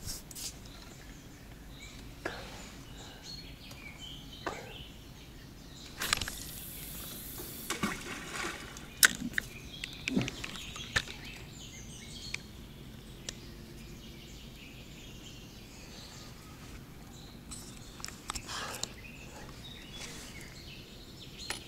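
A feeder rod being cast: about six seconds in, a brief hissing whoosh of line running off the reel, followed by a few sharp clicks of the reel and tackle, over a quiet outdoor background.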